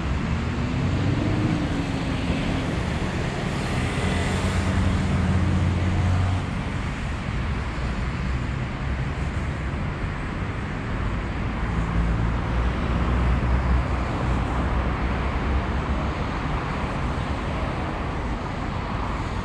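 Steady road traffic: cars passing, with a low engine hum that swells and fades as vehicles go by, louder about four to six seconds in and again around twelve to fourteen seconds in.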